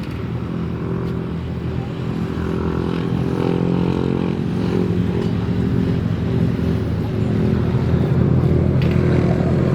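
Racing speedboat engine running hard, a steady droning note that grows steadily louder.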